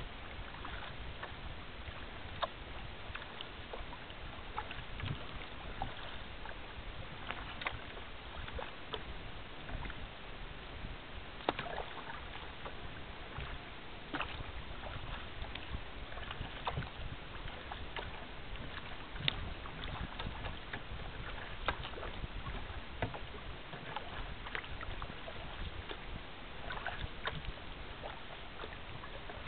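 Water splashing and lapping around the hull of an Asiak Petrel sea kayak under way, with many small irregular splashes over a steady wash of water noise.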